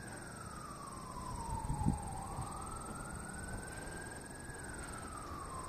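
Emergency vehicle siren on a slow wail, its pitch falling and rising in long sweeps of about two seconds each. A brief low thump comes about two seconds in.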